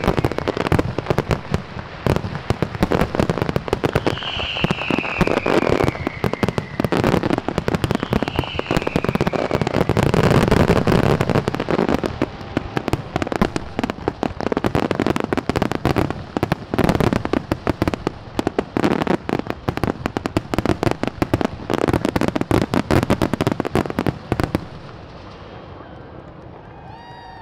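Aerial fireworks in a dense, continuous barrage of bangs and crackling, with a few falling whistles in the first several seconds. The barrage stops abruptly about 25 seconds in, as at the end of a show finale.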